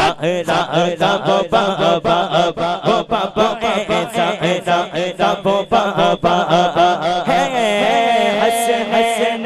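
Male voice singing a naat into a microphone: a quick run of short, pulsing sung syllables, then from about three-quarters of the way through, long held notes that waver.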